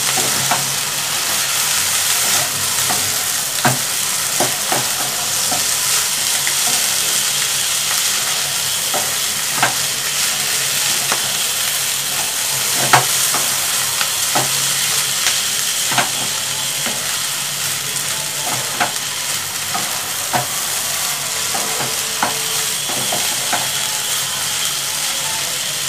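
Chowmein noodles sizzling in a hot nonstick wok while a spatula tosses and stirs them, with irregular clicks and scrapes of the spatula against the pan over a steady frying hiss.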